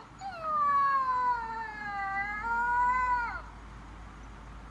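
Recorded puppy crying sound played back as a prank: one long, high whining cry lasting about three seconds, sliding slowly down in pitch, stepping up again near the end and then breaking off.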